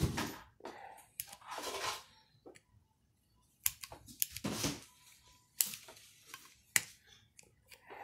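Sharp clicks and small snaps of plastic and metal parts of an air compressor pressure switch being worked by hand, several in pairs, with softer rustling handling noise between them, as the spring-loaded switch parts are pressed into their seat.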